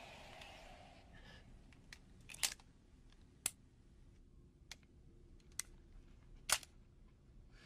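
Sharp metallic clicks of a snub-nosed revolver being handled, about six spread a second or so apart, the loudest a quick double click about two and a half seconds in and a single one near the end.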